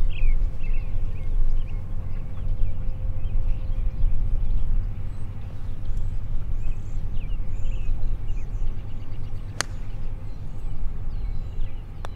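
Steady low rumble of wind on the microphone, with birds chirping now and then. About nine and a half seconds in, a single sharp click as a putter strikes a golf ball.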